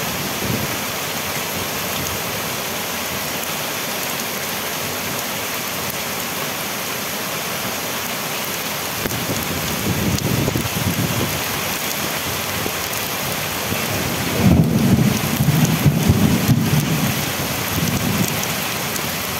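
Heavy hurricane rain falling steadily on foliage, a constant hiss. Low rumbling surges rise over it about halfway through and, louder, for several seconds near the end.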